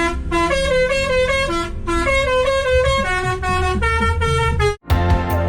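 Klakson basuri, a multi-tone musical vehicle horn, playing a quick melody of short notes. About five seconds in it cuts off abruptly and music with a beat takes over.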